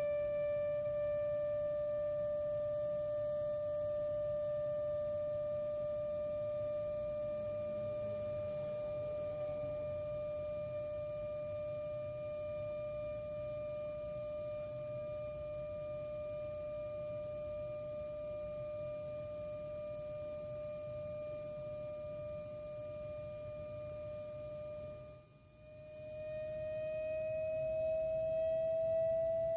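Steady whine from a Volkswagen Golf Mk7 after the engine has been switched off, the abnormal after-shutdown noise that returns after running the air conditioning. It fades slowly, cuts out briefly about 25 seconds in, then comes back slightly higher in pitch.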